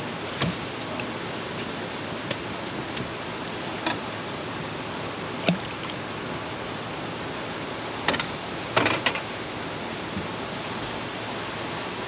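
Steady rush of river water pouring through the dam below which the boat sits, with a few sharp clicks and knocks scattered through it, a cluster of them about two-thirds of the way in.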